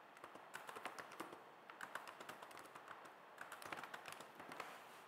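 Faint, irregular keystrokes on a computer keyboard: someone typing.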